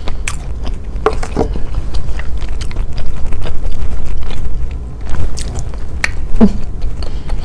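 Close-miked chewing of a mouthful of avocado toast, with many small wet mouth clicks. There is a short closed-mouth hum about a second in and again near the end.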